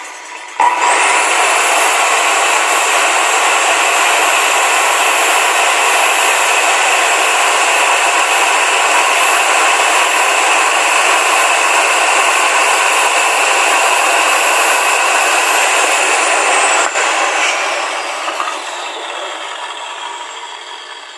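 INGCO 2200 W circular saw with a 9-1/4 inch blade switched on: its motor whines up to speed in an instant and runs at a steady high pitch. It is then switched off about sixteen seconds in, and the whine falls in pitch and fades as the blade spins down.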